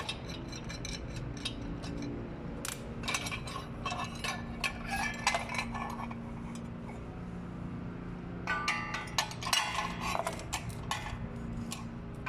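Metal pieces clinking and clattering as they are handled, in irregular clusters of short sharp knocks, busiest in two spells with a quieter stretch between, over a steady low hum.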